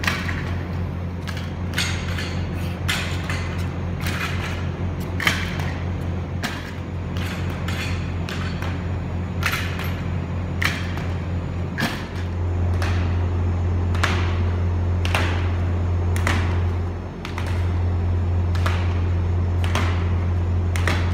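Footfalls of a hurdler's running shoes on a concrete floor during hurdle drills: sharp, echoing slaps at irregular spacing, about one or two a second, over a steady low hum that grows louder about halfway through.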